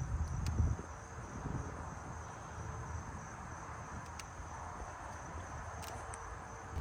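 Crickets trilling steadily in the background, with a brief low rumble in the first second and a few faint clicks.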